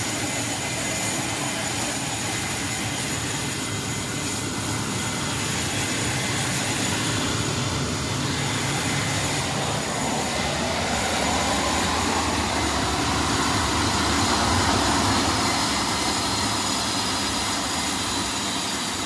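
Concorde's Olympus 593 turbojet engine running on a ground test: a steady, loud rushing jet noise with thin high whining tones over it, swelling a little about three-quarters of the way through.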